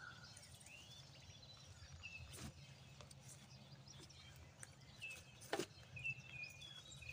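Faint birds chirping in short calls, with two soft knocks, one about two and a half seconds in and one about five and a half seconds in.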